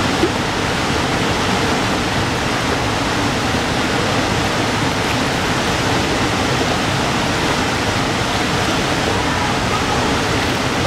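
Steady, loud rush of whitewater pouring over a river falls, a dense even roar of churning water close to the microphone.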